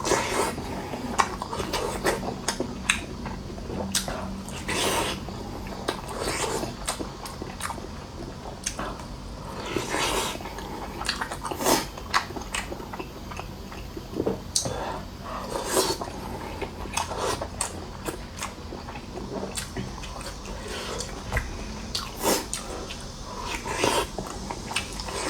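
Close-miked eating: a person chewing and biting food, with irregular clicks and smacks.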